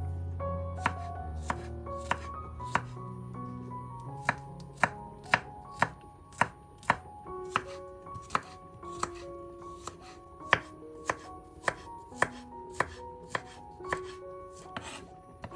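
A knife chopping food on a cutting board in steady strokes about two a second, with a short break about three seconds in. Soft background music with melodic notes runs underneath.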